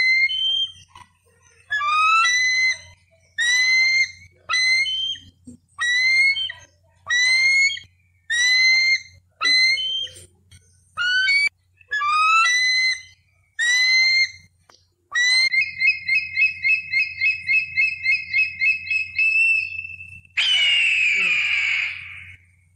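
Bald eagle calling: a run of high, thin piping whistles that rise in pitch, about one a second, then a fast chattering series of about ten notes a second, and a harsher scream near the end.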